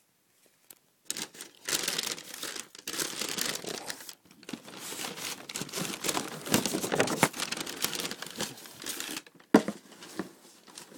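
Paper wrapping in a shoebox being crinkled and pulled away from a new pair of shoes in a long run of rustling, then one sharp knock near the end.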